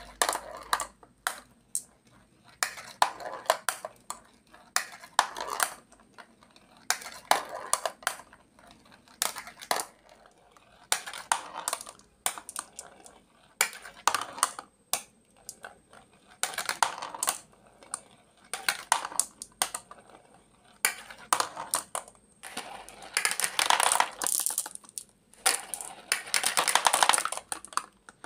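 Glass marbles rolling down a plastic spiral ramp and dropping into a plastic toy dump truck's bed, clattering against the plastic and the marbles already there. A new run of rattling comes every second or two, with longer, denser clatter near the end.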